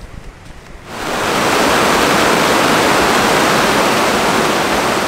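River rapids: whitewater rushing over rocks, a loud steady rush that comes in suddenly about a second in, after a quieter stretch of outdoor background.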